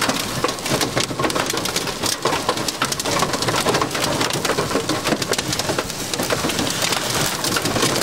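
Heavy rain beating on a vehicle in a thunderstorm downburst: a dense, steady clatter of countless small hits.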